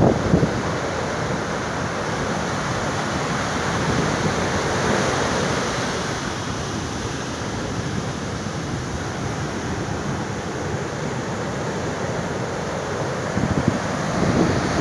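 Ocean surf washing steadily on the shore, swelling and easing slightly, with wind buffeting the microphone at the start and again near the end.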